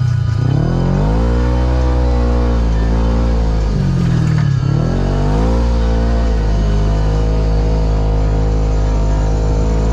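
Kawasaki KRX 1000 side-by-side's parallel-twin engine running under load. The revs drop twice, about a third of a second in and about four and a half seconds in, climbing back up each time, then hold steady.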